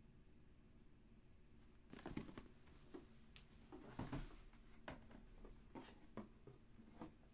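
Faint rustling and light taps of a pair of sneakers being handled and turned over, in short scattered bursts starting about two seconds in, over a low steady hum.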